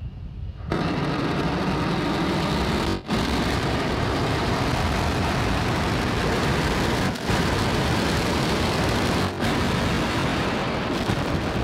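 Starship SN8's Raptor rocket engines relighting about a second in, then firing steadily for the flip and landing burn as a loud, even rushing noise, broken by three very brief dropouts.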